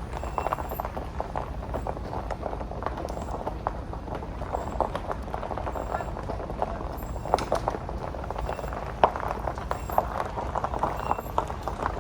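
Car rolling slowly over a rough unpaved road: tyres crunching with irregular clicks and pops of stones over a steady low road rumble, with a few louder pops.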